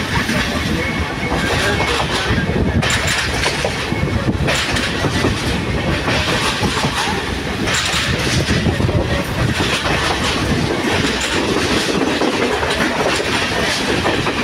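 Class S11 diesel multiple unit running at speed, heard from an open door: the wheels run on the rails under a steady rush of wind past the opening.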